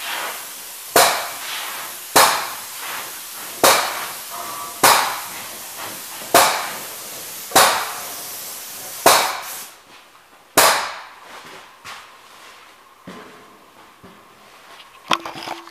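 Airless paint spray gun triggered in short bursts, about one every second and a half, each starting sharply and hissing away over most of a second, echoing in a large shop. The bursts stop about two-thirds of the way through, leaving only a few faint clicks and one brief louder clatter near the end.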